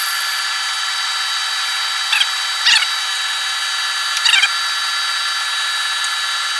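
Milling machine spindle running steadily with a drill bit boring a hole through a steel plate under power feed. A few short squeals, falling in pitch, come from the cut about two, three and four seconds in.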